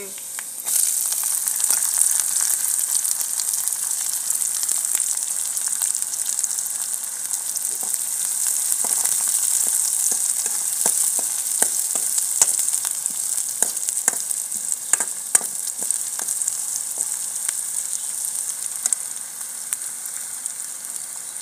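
Chopped onion dropped into hot oil in a kadhai starts sizzling suddenly about a second in and keeps frying steadily, with a steel ladle clicking and scraping against the pan as it is stirred.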